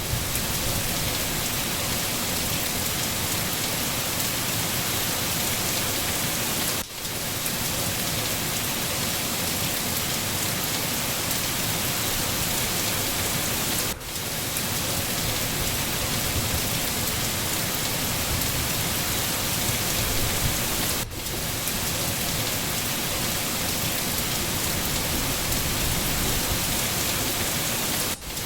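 Steady, even rain falling, with a brief drop in level about every seven seconds.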